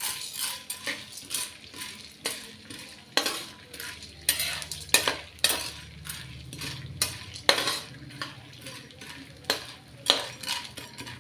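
A ladle stirring edible gum (gond) as it fries in hot ghee in a kadhai: repeated scraping strokes against the pan, about two a second, over a light sizzle.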